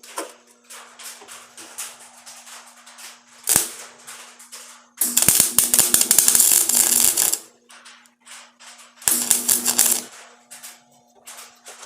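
Electric welder arc crackling as it fills rust pit holes in car body sheet metal backed by a copper spoon. A brief tack comes about three and a half seconds in, then a longer burst of about two seconds near the middle and a shorter one of about a second near the end, with faint light ticks in between.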